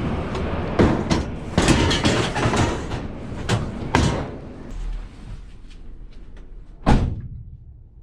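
Scrap items clattering and knocking as they are loaded and shifted inside a car, then a car door slammed shut about seven seconds in.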